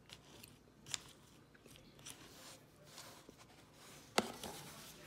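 A spoon scooping through an acai bowl in a paper cup: soft scrapes with a few quiet clicks, and a sharper knock about four seconds in.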